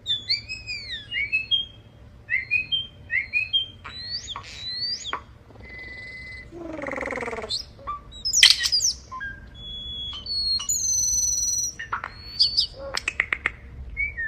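A bird making robotic, electronic-sounding calls: a varied run of sliding whistles and short chirps, held beeping tones, a buzzy downward sweep about seven seconds in, and a fast rattle of clicks near the end.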